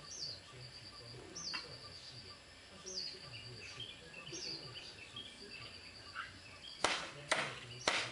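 High chirping call repeating about every one and a half seconds, each a short run of even pulses ending in a quick falling note, over fainter scattered chirps. Near the end, four loud rustling knocks.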